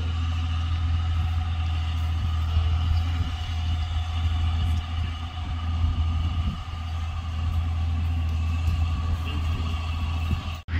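Farm tractor towing a forage harvester and wagon, its engine running with a steady drone and a steady higher whine over it. The sound cuts out for an instant near the end.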